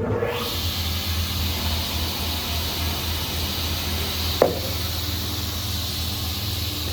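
Vertical band saw running: a steady hiss over a low motor hum, with one sharp knock about four and a half seconds in.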